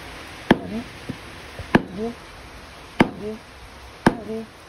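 A blade chopping into toddy palm fruit (ice apple). There are four sharp blows, each a little over a second apart.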